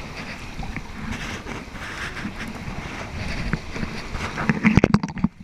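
Wind buffeting the microphone over open sea water, with a cluster of loud knocks and clatters near the end.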